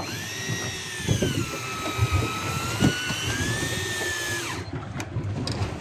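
A fishing reel whining for about four and a half seconds, its pitch sagging and recovering, then gliding down and cutting off, over low knocks and water noise from the boat.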